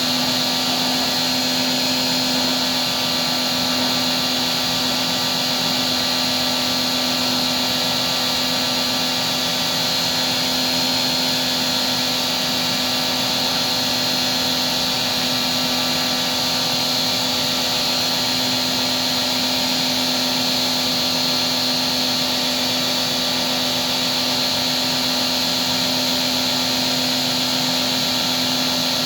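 A small electric motor running steadily with an even whine and a hiss, unchanging throughout.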